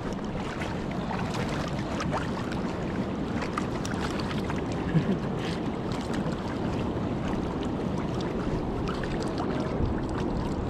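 Steady rush of shallow river water, with the swish and splash of legs wading through it, and a single short knock about five seconds in.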